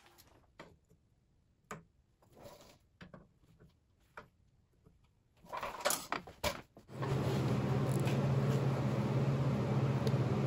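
Light metal knocks and clicks as steel frame parts are set in place and clamped, then about seven seconds in a TIG welding arc strikes and runs: a steady hiss with a low hum.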